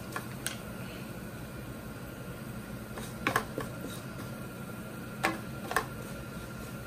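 Wooden spatula stirring garlic and herbs in a nonstick frying pan, knocking sharply against the pan about five times, over a steady background hum.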